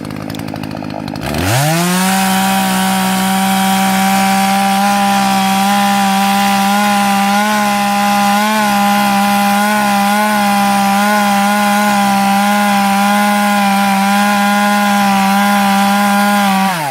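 Gas two-stroke chainsaw revving up from idle about a second in and held at full throttle as it cuts through a fallen log, its pitch wavering slightly under load. It drops back off the throttle at the end.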